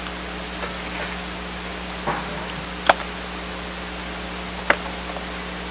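A few short, sharp clicks as hands handle the case of a Panasonic Toughbook CF-19 tablet, the clearest two about three and five seconds in, over a steady hiss and low hum.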